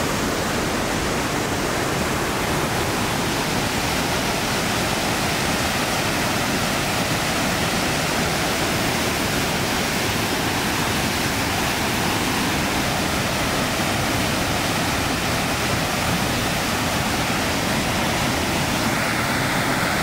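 Chagrin Falls, a waterfall in heavy high-water flow, pouring into the churning river below; a steady rush of falling and rushing water.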